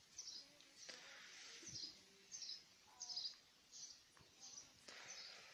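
A small bird chirping faintly, one short high chirp repeated roughly every half second to second, with a few soft handling clicks underneath.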